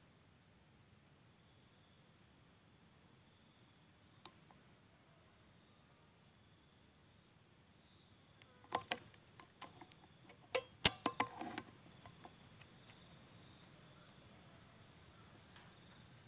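Steady high-pitched chirring of insects such as crickets. About nine to eleven and a half seconds in comes a run of sharp clicks and rustling, the loudest a single sharp crack.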